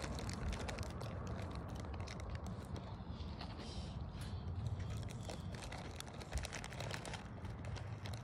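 Steady low rumble of outdoor wind on the phone microphone, with a dense run of small crackles and scuffs over it.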